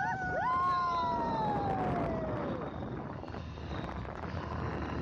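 Motorcycle ride noise with wind rushing over the microphone. In the first couple of seconds come a few short calls that rise and fall in pitch, then one long call that slides steadily down.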